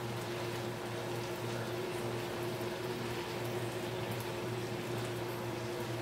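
Beef pieces sizzling and bubbling in sauce in a non-stick frying pan, a steady even sizzle, over a constant low hum.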